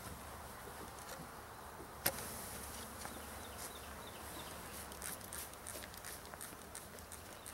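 Honey bees from an opened package buzzing steadily, with a sharp click about two seconds in followed by a short hiss, and a few light taps later on.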